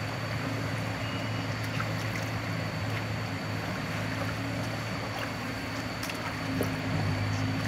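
A small engine running steadily with a low hum, under an even hiss of flowing water, with a faint steady high-pitched tone.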